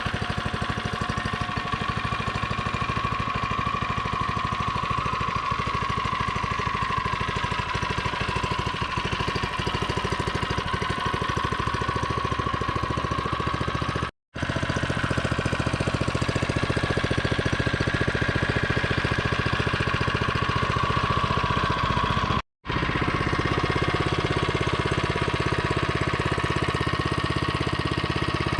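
A mini bike's small engine running steadily with rapid, even firing. The sound cuts out abruptly twice, at about half-way and again near the three-quarter mark.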